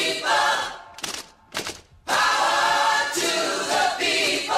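A group of voices singing a short a cappella jingle in two phrases, with a brief pause after the first phrase that holds two short sharp hits.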